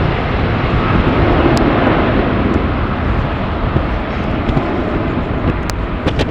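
Jet airliner engines running, mixed with strong wind buffeting the microphone in an uneven low rumble.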